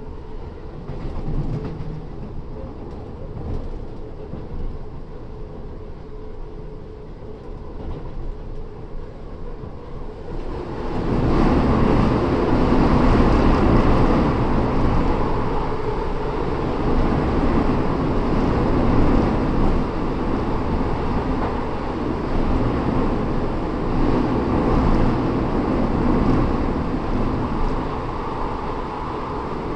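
British Rail Class 317/7 electric multiple unit with nose-suspended traction motors running at speed, with continuous rumble and wheel-on-rail noise. About eleven seconds in, the sound grows clearly louder and fuller and stays that way.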